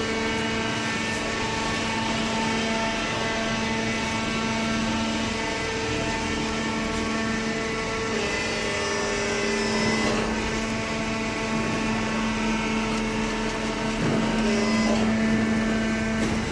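Hydraulic cardboard baler running, its electric motor and hydraulic pump giving a steady hum with a few faint knocks partway through.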